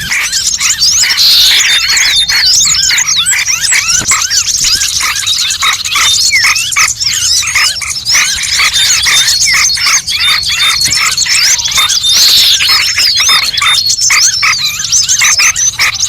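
Bird-lure call recording: loud, dense chatter of many small birds chirping and twittering at once, without a break.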